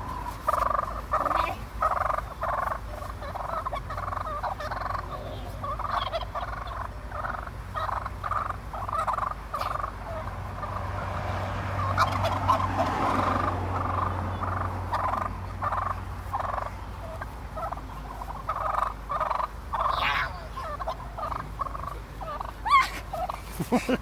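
Wild turkeys calling over and over, a run of short notes about two or three a second, with a quicker rattling call near the end.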